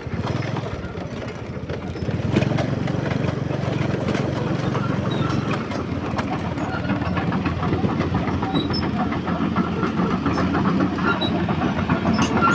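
Caterpillar 320D hydraulic excavator's diesel engine running steadily, growing louder about two seconds in, with occasional metallic clanks.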